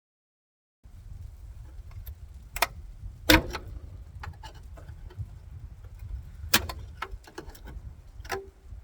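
Steel pry bar working against a seized car door: from about a second in, a low rumble broken by a few sharp metal clanks and knocks, the loudest about three seconds in.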